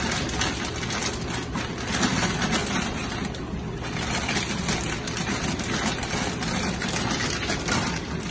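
Kitchen tap running steadily into a stainless steel sink as broccoli is rinsed under it.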